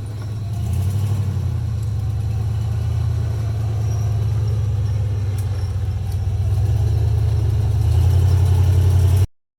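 Off-road Jeep's engine running steadily with a low hum, growing a little louder near the end before the sound cuts off abruptly to silence.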